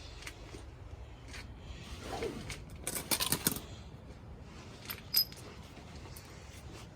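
Hands greasing and handling a control arm bushing and its parts: light rubbing and scraping, a quick cluster of clicks about three seconds in, and one sharp metallic clink about five seconds in.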